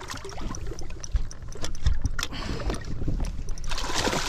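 Water slapping against a rocking boat's hull, with scattered knocks and clicks and a brief splashy rush about four seconds in.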